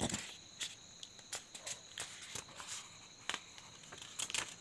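Paper pages of a printed booklet handled and turned, a string of short, dry crackles. A steady high insect chirring, like crickets, runs underneath.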